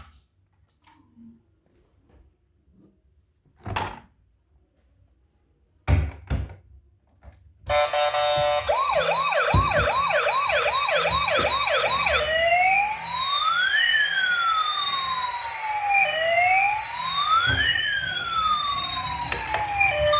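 A few knocks in near silence, then, about eight seconds in, a toy emergency vehicle's electronic siren starts. It gives quick yelping sweeps about twice a second, then switches to slow up-and-down wails, two pitches sweeping past each other.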